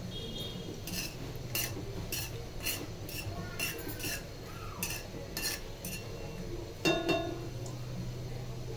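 A metal spoon stirring and tapping against a cooking pan, about two sharp clinks a second, with a louder clatter about seven seconds in. A steady low hum runs underneath.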